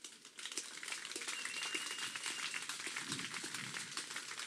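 Audience applause from a small crowd, many hands clapping at once, setting in about half a second in.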